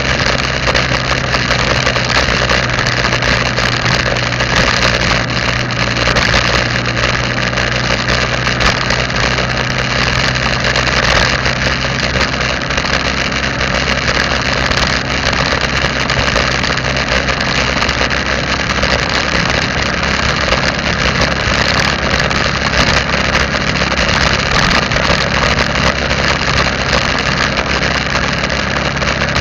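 A vehicle's engine running steadily while driving, with tyre and wind noise, picked up by a dashcam.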